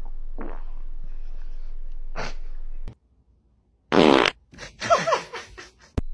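A dog's fart: one loud, raspy, fluttering blast about four seconds in, followed by a few shorter, softer sounds. A steady low hum runs under the first three seconds.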